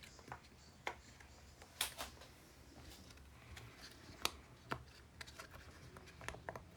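Faint handling of small plastic toys and items: scattered light clicks and taps, a few at a time, over a quiet room.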